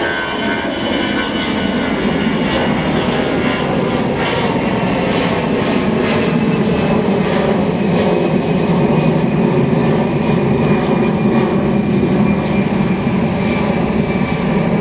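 Freight train cars rolling along the rails: a steady, loud rumble of wheels on track with several held metallic tones over it and faint regular ticks.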